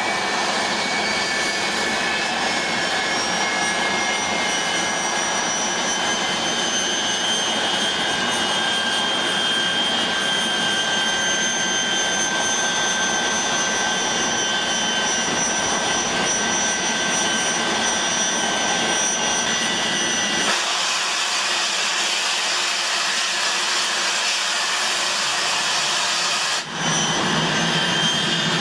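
English Electric Lightning F.6's twin Rolls-Royce Avon turbojets running on the ground: a steady jet rush with several high-pitched whines, one still climbing slightly at the start. About twenty seconds in, the sound turns thinner and hissier for about six seconds, then returns.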